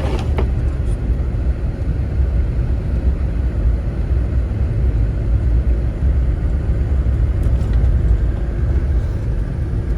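Steady low rumble of a vehicle driving along a highway covered in deep snow, heard from inside the cab.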